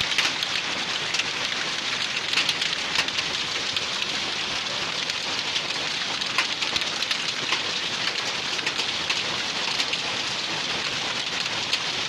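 Heavy rain mixed with hail pelting down on roofs and ground: a dense, steady hiss full of sharp ticks from hailstones striking.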